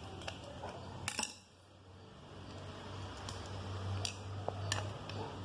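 Small metal parts and tools clinking as they are handled on a starter motor, a few sharp clicks with the loudest about a second in, over a low steady hum.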